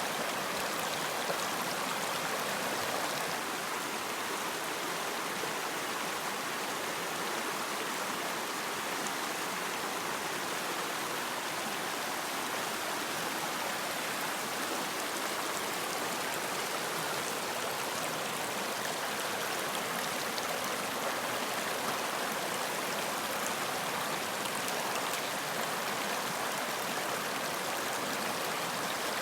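Running water flowing steadily: a continuous, even rush with no breaks or changes.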